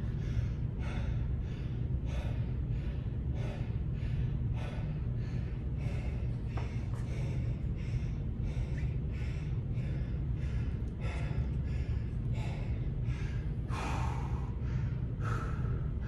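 A man breathing hard and fast, catching his breath between sets of heavy dumbbell exercise: a loud breath in or out about every half second to second, with one stronger breath near the end.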